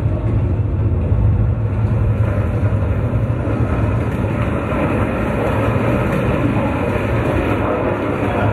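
A steady, rumbling drone soundscape: a low hum with a dense noisy wash above it, unchanging throughout.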